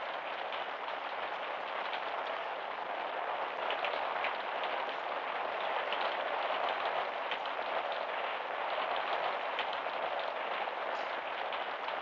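Steady rain falling, with scattered drop ticks, heard through an old mono film soundtrack whose sound stops short of the highest frequencies.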